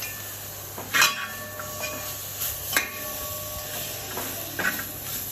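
Metal ladle scraping and knocking against a heavy metal pan while stirring a frying onion-and-spice masala: a few sharp clanks, the loudest about a second in, followed by a brief ringing of the pan.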